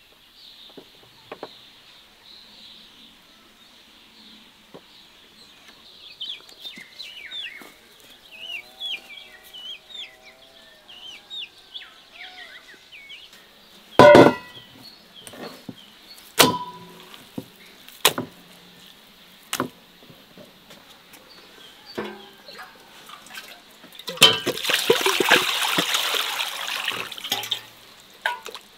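Birds calling in the background, then a few sharp knocks, the loudest about halfway through, and near the end about three seconds of water running or being poured.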